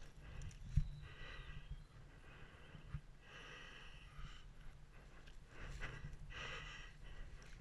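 A climber's breathing, close up: a string of in and out breaths, each lasting about half a second to a second. Two dull knocks, the louder about a second in and the other about three seconds in.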